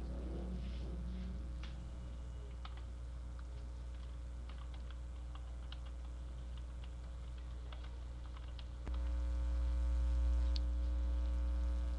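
Irregular light clicks and taps over a steady low electrical hum. The hum gets louder about nine seconds in.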